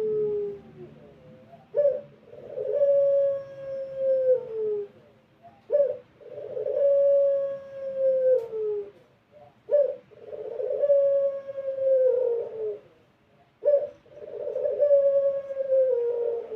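Puter pelung dove, a domestic turtle dove bred for its long coo, cooing over and over. Each call is a short clipped note followed by a long drawn-out coo that dips in pitch at the end, about every four seconds.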